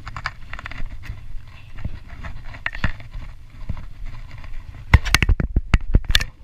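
Scattered knocks and bumps over a steady low rumble. A quick run of loud knocks comes about five seconds in and is the loudest part.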